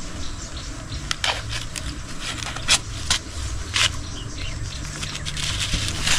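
Banana fibres rustling and crackling as they are handled and laid into a woven basket, with a few sharp crackles spread through, over a low steady rumble.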